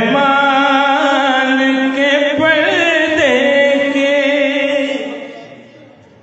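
A man's amplified voice, through microphone and loudspeakers, singing a long, drawn-out phrase of a devotional qasida, wavering and gliding in pitch; the phrase fades out near the end.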